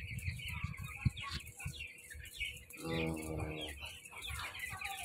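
A large flock of young broiler chicks peeping continuously, many overlapping high chirps, with one louder drawn-out call about three seconds in. A steady low hum from the house's ventilation blowers runs underneath.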